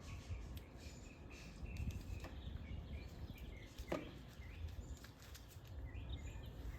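Faint outdoor background: a low steady rumble with scattered short bird chirps, a few light clicks, and one falling squeak about four seconds in.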